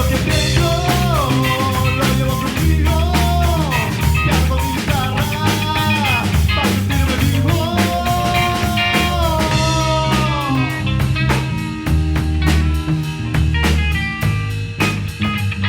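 Live rock band playing an instrumental passage: a steady drum-kit beat and bass under a lead line of bending, sliding notes that stops about ten seconds in, leaving the band.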